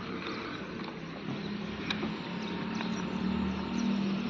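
TVS Ronin 225 single-cylinder engine starting up about a second in and then idling steadily, a low even hum that grows a little louder. The owner takes it for the engine's normal sound after a service meant to cure an engine noise.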